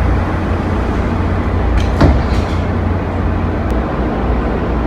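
Washington Metrorail car's sliding doors closing and shutting with a sharp knock about two seconds in, over a steady low rumble.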